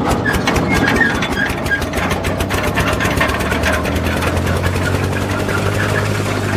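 An engine running, its rapid clatter speeding up as a steady low hum builds. Birds chirp over it during the first two seconds.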